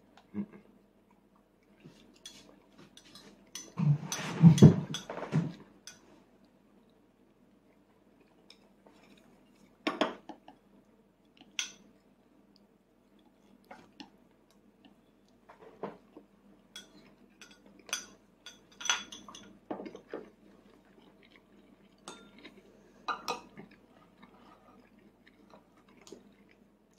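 A small metal fork scraping and clinking against a child's plate as food is cut up, loudest in a cluster about four to six seconds in, then scattered single clinks.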